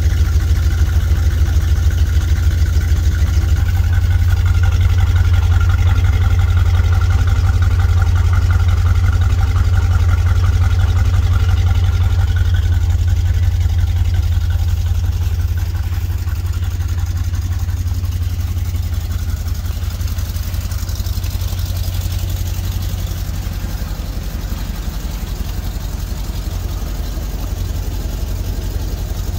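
1986 Chevrolet G30 motorhome engine idling steadily on a cold start, its exhaust pouring out vapour in the cold.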